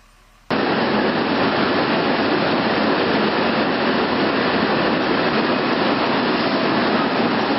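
Steady, loud jet aircraft roar, starting abruptly about half a second in and holding even throughout, with no distinct tones in it.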